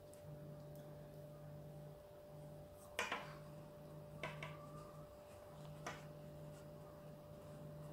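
Quiet room with a steady faint electrical hum, broken by a few short soft clicks and rustles from hands handling and folding the embroidered fabric: a close pair about three seconds in, then single ones a second and a few seconds later.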